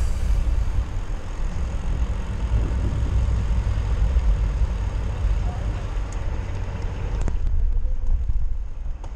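Wind buffeting the microphone of a camera moving along a city street, a steady low rumble over street traffic noise. The higher hiss eases about seven seconds in.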